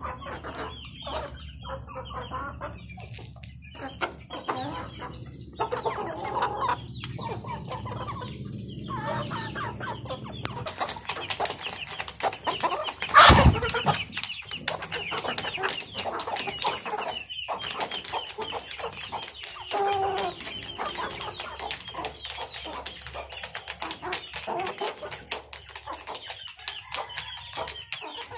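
A flock of Aseel hens and roosters clucking while they feed, with many rapid pecking taps on a clay bowl through the second half. A single loud knock comes about halfway through.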